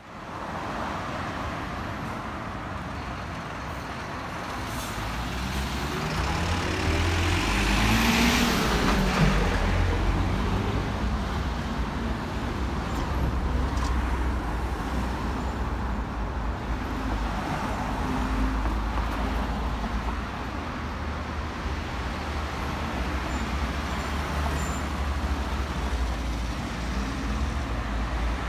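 City street traffic with the low rumble of a heavy vehicle's engine running close by. A high hiss rises and falls about eight seconds in.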